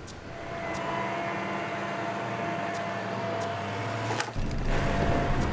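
Toyota pickup truck's engine running with a steady whine over it. About four seconds in it gives way to a louder, deeper engine rumble.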